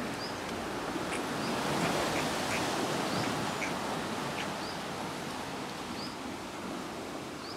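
Fast-flowing canal water rushing in a steady roar, with short high chirps repeating every second or so over it.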